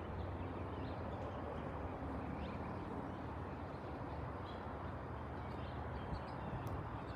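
Steady low rumble of a jet airliner's engines overhead, with small birds chirping faintly in the background.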